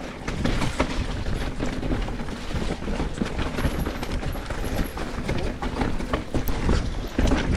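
Electric mountain bike riding fast over a rough trail: a quick, irregular run of knocks and rattles from tyres, frame and chain over rocks and roots, with a steady low rumble of wind on the microphone.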